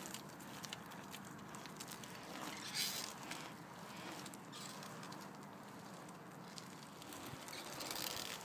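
Faint gritty rolling noise of a Trikke three-wheeled carving scooter's small wheels on asphalt, swelling briefly as it carves.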